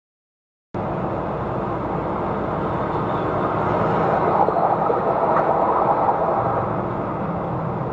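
Silent for the first moment, then steady engine and road noise inside a moving truck's cab, growing slightly louder around the middle.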